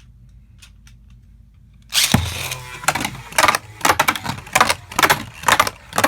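A Beyblade spinning top (Hydra Poseidon with a Bite driver) is launched into a plastic stadium about two seconds in. It then skids around and clatters against the stadium walls about twice a second, with the aggressive movement of an attack-type top.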